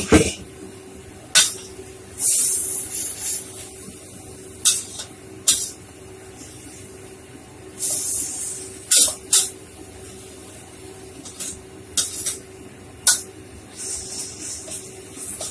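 Leafy greens stir-fried in a wok over a gas flame: bursts of sizzling hiss as they are tossed, three times, with sharp clinks and scrapes of a metal ladle against the wok, over a steady low hum.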